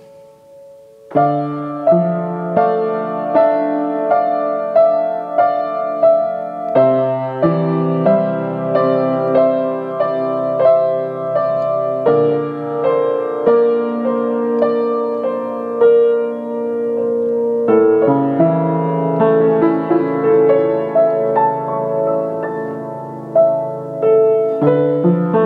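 Upright piano played freely (improvised), with evenly pulsing broken chords over sustained bass notes. The harmony changes every five or six seconds. A chord dies away first, and the playing resumes about a second in.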